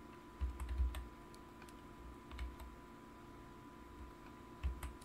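Computer keyboard keys tapped in three short clusters, about half a second, two and a half seconds and four and a half seconds in. Each cluster comes with a dull low thump.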